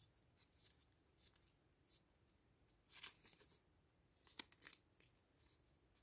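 Faint, scattered rustles and soft peeling sounds of a roll of washi tape being handled and unrolled by hand.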